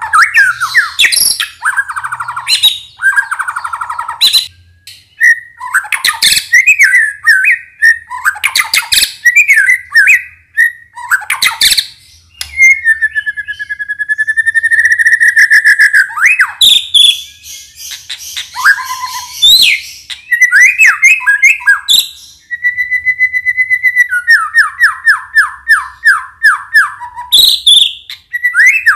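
A white-rumped shama (murai batu) in full song: a varied run of loud whistled phrases and sharp high notes, with a long held whistle about halfway through and a fast series of repeated falling notes near the end.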